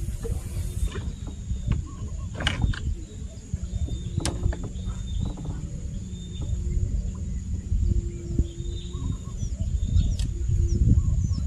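Outdoor ambience: a low rumble, a steady high-pitched hum, scattered short chirps and a few sharp knocks.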